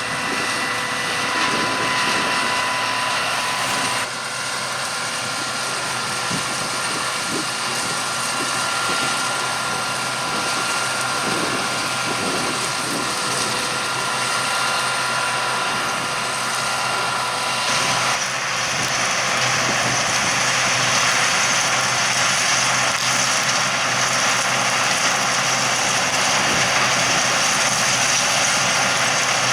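Harvest machinery running steadily: engine drone with several high, steady whining tones. The sound changes abruptly about four seconds in and again about eighteen seconds in, louder and hissier after the second change.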